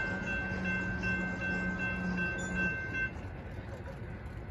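Railroad grade-crossing bells ringing steadily while the gate arms rise after the train has cleared, then cutting off about three seconds in. A low steady hum underneath stops just before the bells.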